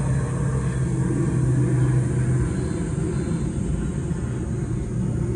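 A steady low engine hum with a rumble under it.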